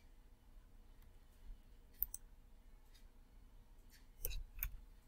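A few faint, sharp computer mouse clicks: one about two seconds in and a louder pair near the end.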